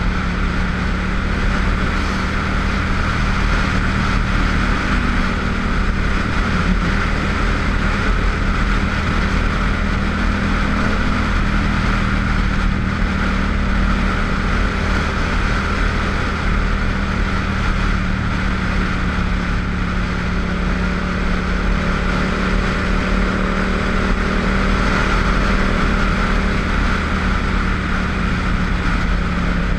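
Motorcycle engine running at a steady cruise with a constant engine note. Wind rushes over the microphone throughout.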